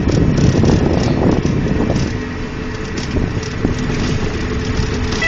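Open-sided sightseeing cart riding along a path: a steady road rumble with irregular rattling and knocking from the cart's body and seat.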